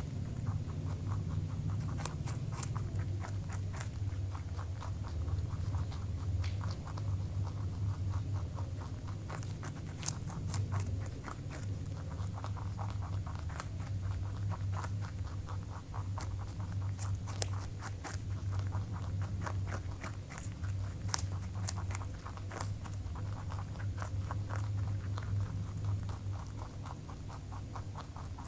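Rabbits chewing a raw carrot: a quick, continuous run of small crisp crunches and nibbles over a steady low hum.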